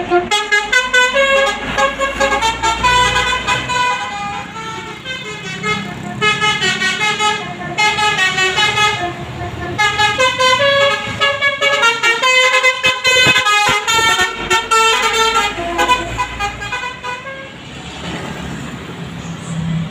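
Basuri multi-tone telolet horn playing a fast melody of short stepping notes. The tune stops about three seconds before the end, leaving a low hum.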